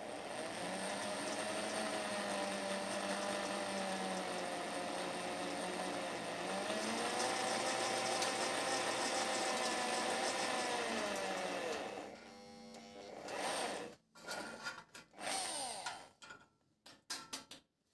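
Handheld electric drill running steadily as it drills through a thin sheet-metal strip backed by a wood block. Its pitch dips about six seconds in and rises again, and it winds down after about twelve seconds. Scattered clicks and knocks follow.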